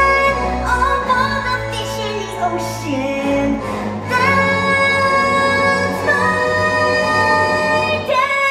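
A song from a stage musical: singing over an orchestral backing track, with long held notes in the second half.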